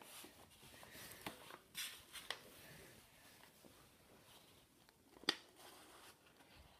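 Faint rustling and soft taps of a handmade paper box being handled on a wooden table, with a few light clicks and one sharper tap about five seconds in.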